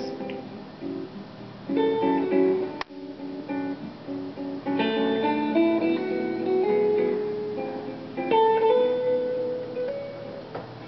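Acoustic guitar music, chords strummed and notes picked and left to ring, with fresh chords struck about two, five and eight seconds in and fading near the end.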